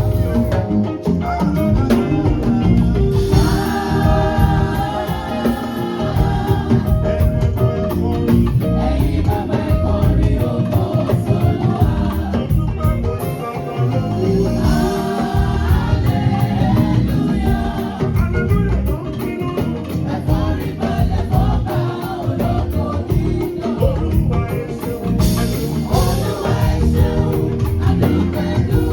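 A choir singing a gospel song over a live band, with a steady, driving drum and percussion beat.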